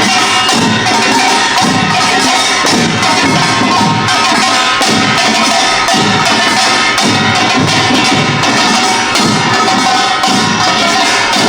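Pungmul percussion ensemble playing at full volume: kkwaenggwari small gongs clanging and ringing over janggu and buk drums in a steady, driving rhythm.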